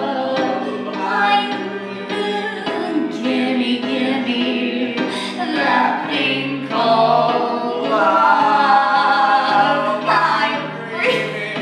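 Several voices singing a show tune together over an instrumental accompaniment.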